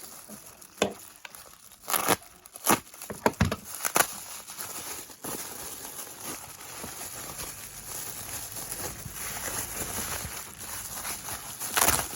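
Packaging being handled and unwrapped: plastic bubble wrap and paper crinkling and rustling, with several sharp crackles in the first few seconds and another near the end.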